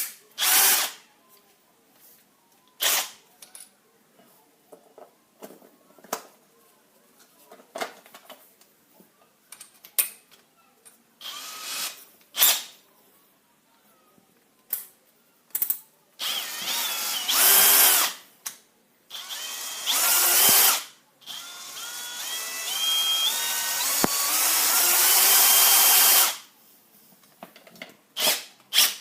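Bosch Professional GSB 18V-55 cordless combi drill run off its 18 V battery: first several short trigger pulses, then longer runs in which the motor speed climbs in steps as the trigger is squeezed further.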